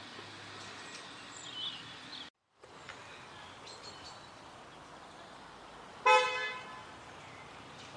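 A car horn gives one short toot about six seconds in, over steady outdoor background noise, with a brief silent gap a couple of seconds in.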